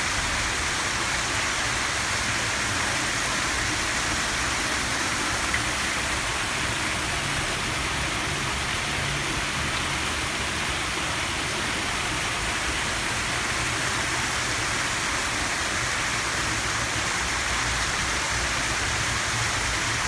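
Water pouring steadily from the open mouth of a grotesque face fountain sculpture, a continuous splashing rush. One faint click about five and a half seconds in.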